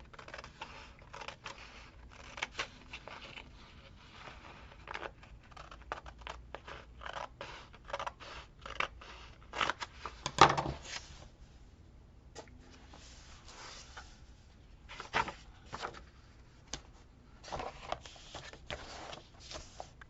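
Scissors snipping paper in a series of short, irregular cuts, with paper scraping and rustling between them; the loudest cluster comes about halfway through.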